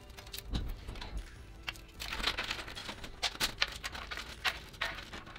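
Cables being pushed through a PC case: irregular clicks, taps and rustles of cable and plastic against the case panels.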